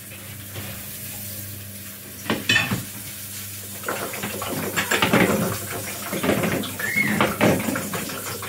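Eggs being handled in the kitchen: clicking against one another as they are lifted from a carton tray and set into a plastic bowl, with knocks at a glass bowl of beaten egg. One knock comes a little after two seconds, then a run of light clicks and knocks from about four seconds in, over a steady low hum and hiss.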